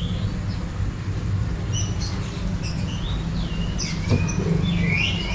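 Small birds chirping in short, high, squeaky calls several times, busier near the end, over a steady low rumble.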